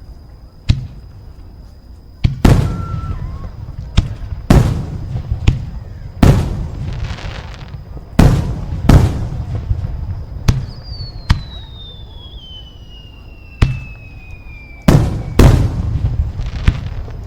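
Fireworks going off: a string of loud, sharp bangs at uneven intervals, about a dozen in all. Between about ten and fifteen seconds in, a long whistle slides steadily down in pitch.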